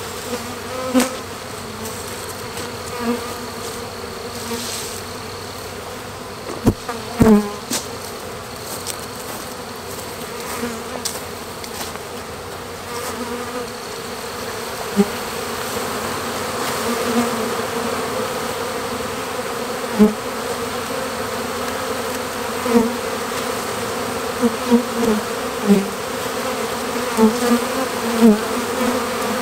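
Honeybee swarm buzzing in a steady hum while it is shaken from a tree into a hive, with single bees flying close past the microphone again and again. There are two sharp knocks about seven seconds in.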